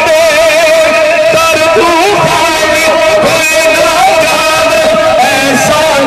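Men singing a Punjabi naat into handheld microphones over a PA system. The melody is drawn out in long, wavering held notes.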